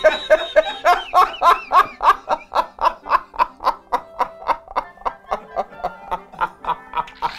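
A man laughing hard in a long unbroken run of rapid 'ha-ha-ha' pulses, about five a second, slowly getting weaker.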